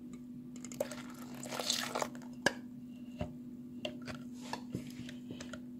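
Milk being poured into a bowl of whipped egg yolks and sugar: a brief soft splashing hiss among light clicks and taps, over a steady low hum.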